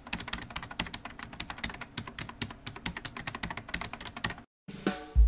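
Computer-keyboard typing sound effect: a fast, irregular run of key clicks, about ten a second, accompanying the animated title text. It stops about four and a half seconds in, and a short rising swell follows near the end.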